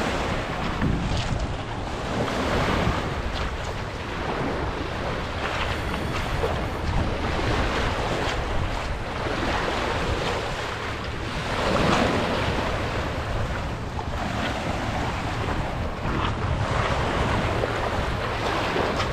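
Small waves washing onto a pebble beach, with wind buffeting the microphone; the wash swells about twelve seconds in.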